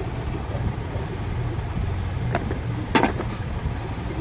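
Two light metallic clinks of starter-motor parts and tools being handled, the second louder with a short ring, over a steady low background rumble.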